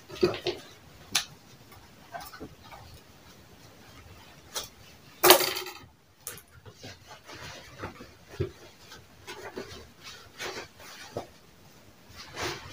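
Handling of denim fabric and tools on a work table: scattered light knocks and rubbing, with one louder clatter about five seconds in.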